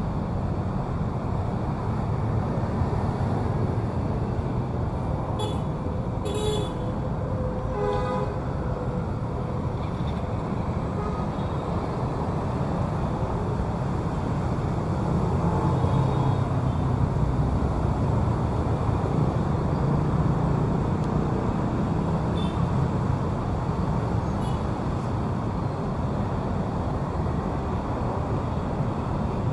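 Busy city road traffic: a steady rumble of passing vehicles, with a short vehicle horn toot about eight seconds in.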